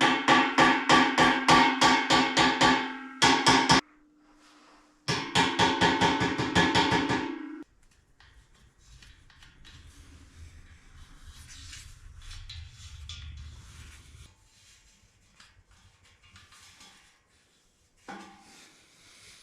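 Background music with a fast, steady percussive beat over sustained notes. It breaks off briefly, resumes, then stops about halfway through, leaving a faint low hum.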